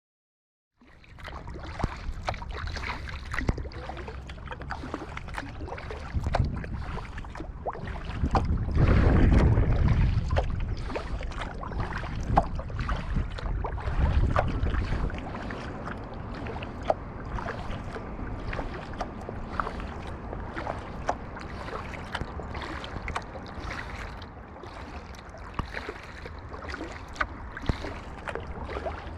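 Kayak paddling on a river: paddle blades dipping and splashing in the water with small drips and knocks, while wind buffets the microphone, swelling loudest about nine seconds in.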